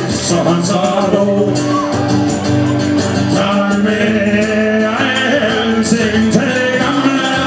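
Live band playing a song: male voices singing over acoustic guitar, with percussion keeping a steady beat.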